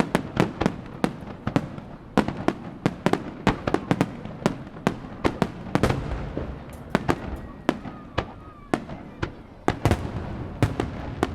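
Aerial fireworks bursting in a dense barrage, several sharp bangs a second over a low, rumbling echo.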